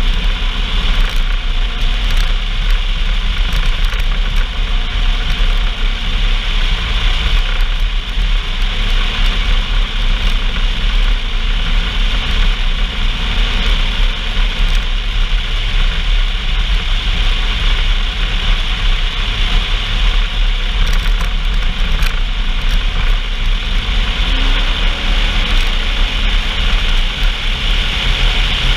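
A motor vehicle's engine running steadily, with a constant rushing noise over it. About 24 seconds in, one tone in the engine note rises slightly.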